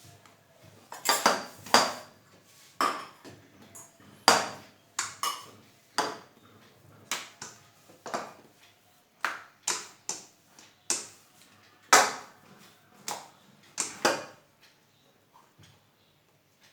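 Metal utensil knocking sharply against a cooking pan, a series of separate clacks with a short metallic ring, roughly one a second, which stop a couple of seconds before the end.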